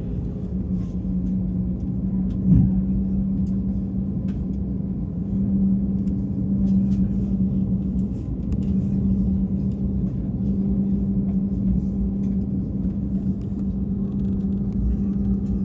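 Steady low rumble and hum inside an airliner cabin as the jet moves slowly on the ground, with one short thump about two and a half seconds in.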